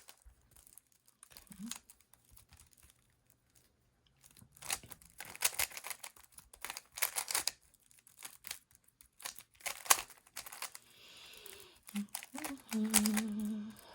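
A loose plastic Rubik's Cube being twisted by hand: rapid clicking and clattering of its layers turning, in several quick flurries.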